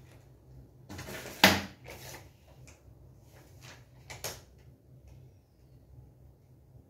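Sheets of paper rustling as a stack is handled and set on a wooden table, with one sharp knock about a second and a half in and a smaller one around four seconds.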